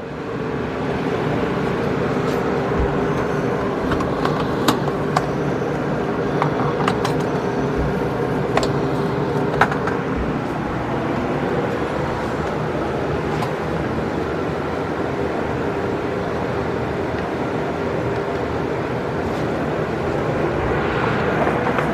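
Steady mechanical hum with a few steady low tones, coming up just after the equipment is switched on, with a few light clicks and taps over it in the first half.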